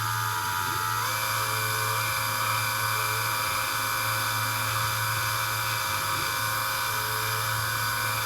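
Small power drill running steadily with a high whine, speeding up about a second in, drilling out the bore of a chainsaw fuel-line nipple with a small bit.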